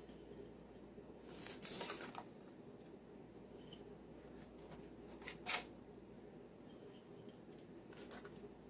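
Faint, scattered rustling and scraping as chopped pecans are sprinkled by hand over the coconut layer in the baking pan. There is a longer rustle about a second and a half in and a sharper single scrape about five seconds in.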